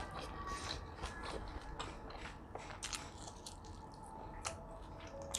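A person chewing and biting food close to the microphone: many short, irregular mouth clicks and crunches.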